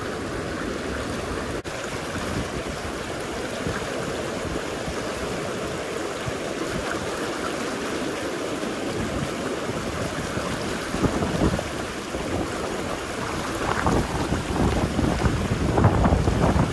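Steady rush of river water with wind buffeting the microphone; the gusts get stronger over the last few seconds.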